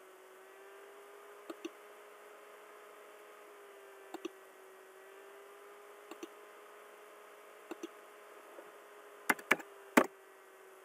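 Computer mouse clicks picking points on screen: single clicks and quick pairs spread a second or two apart, with a louder cluster near the end. A faint steady electrical hum runs underneath.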